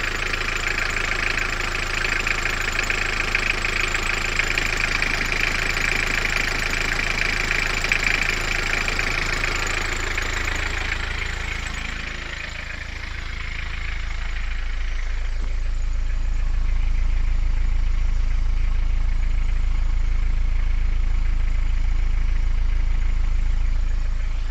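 1984 Ford Tempo's four-cylinder diesel idling steadily after an overnight cold start. For the first half it is heard from the engine bay as a knocking diesel clatter. About halfway through it changes to a deeper, louder exhaust note at the tailpipe.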